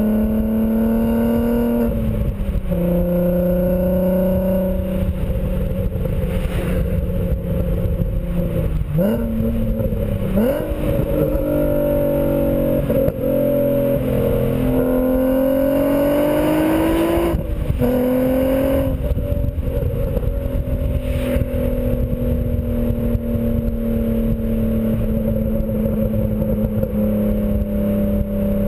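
2004 VW R32's 3.2-litre VR6 engine through a non-resonated BlueFlame cat-back exhaust while driving. The engine note climbs under acceleration and drops abruptly at gear changes a few times, then holds a steady note at cruise for about the last ten seconds.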